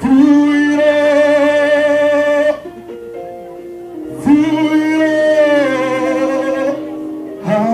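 A singer's voice through a microphone, holding two long, wavering notes with a short gap between them, over sustained accompaniment chords.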